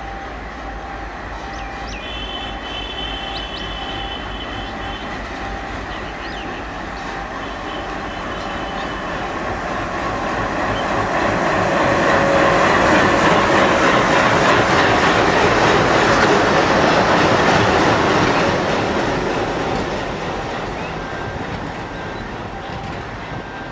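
Diesel locomotive hauling a passenger train passing close by: its sound builds as it approaches and is loudest about halfway through as the locomotive goes past. The coaches then roll by on the rails and the sound slowly eases off.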